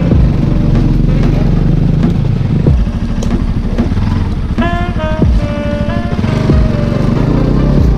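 Bajaj Pulsar NS200's single-cylinder engine running at low speed over a rough dirt forest trail, with a few low thumps as the bike rides over bumps. A music melody plays over it in the middle.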